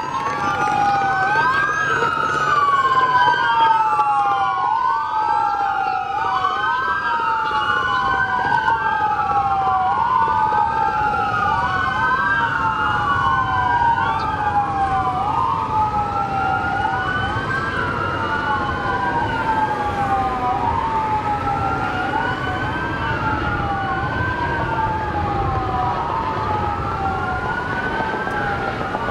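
Several police car sirens wailing at once, out of step with each other, each rising and falling in pitch every couple of seconds, over the low rumble of traffic.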